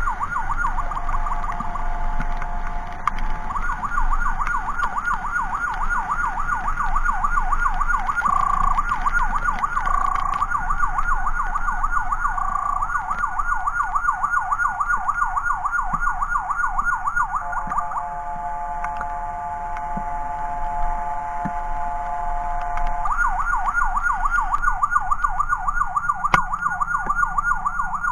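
Electronic emergency siren in a fast yelp, switching to a steady tone of several notes at once for a second or so about two seconds in, and again for about five seconds near the middle before the yelp resumes.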